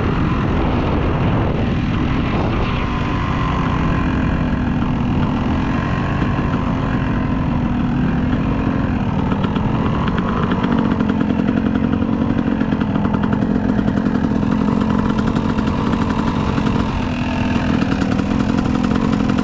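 Dirt bike engine running under throttle as the bike is ridden along a trail, its note climbing a little about halfway through.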